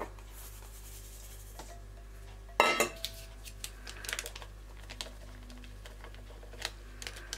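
Stainless steel bowls clinking as dry ingredients are added to a mixing bowl: one loud sharp metal clank about two and a half seconds in as a small bowl of sugar is tipped in, then a few light taps and clicks as a sachet of baking powder is shaken over the bowl.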